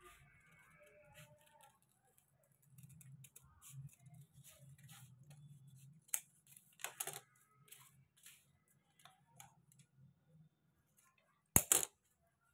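Large scissors cutting out a neckline pattern from a folded sheet: a scatter of short snips and paper rustles, with one sharp, loudest snip near the end. A faint low hum runs underneath.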